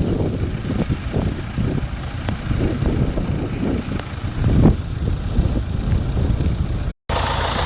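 Tractor engine running, with gusts buffeting the microphone in a low, uneven rumble. About seven seconds in, a brief dropout cuts to a steadier engine idling.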